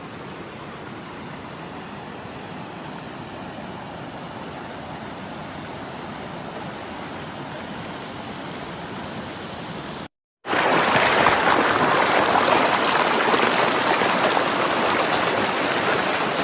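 Running water, a steady rushing stream. About ten seconds in it cuts out for a moment and comes back noticeably louder and closer.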